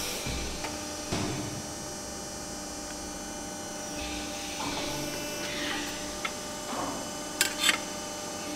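Morgan Rushworth CNC press brake running with a steady hum while a 2 mm mild steel part is folded, with short thuds and sharp metallic clicks as the sheet is placed against the tooling and back gauge; two louder clicks come close together near the end.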